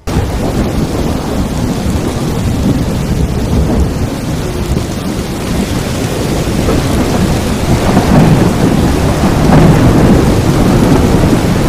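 Thunderstorm: heavy rain with rumbling thunder, cutting in suddenly and swelling to its loudest about eight to ten seconds in.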